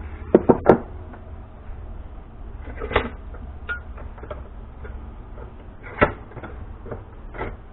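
Handling knocks of a bent steel flat-bar brace and bench vise: three quick sharp knocks about half a second in, then single knocks every second or two, over a low steady hum.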